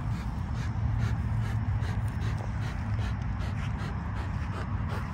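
American XL bully panting and snorting while tugging on a flirt pole rope, over a steady low rumble.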